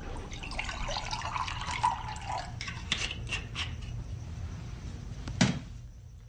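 A drink poured from a bottle into a glass, the pour rising in pitch as the glass fills. A few light clinks follow, then one sharper knock a little after five seconds in.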